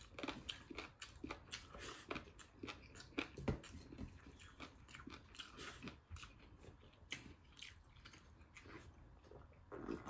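Faint, irregular chewing and biting sounds of a man eating rice and pork curry with his hand, with small clicks and smacks of the mouth.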